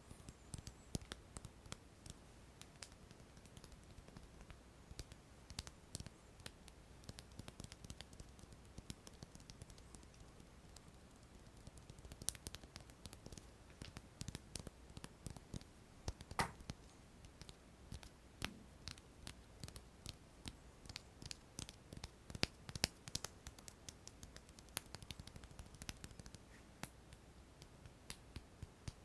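Close-up ASMR hand sounds: fingers tapping and clicking in quick, irregular, sharp little clicks, with a few louder ones scattered through.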